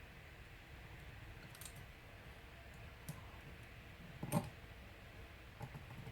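A few small, sharp clicks and taps of model locomotive parts being handled and fitted together, the loudest a little past the middle.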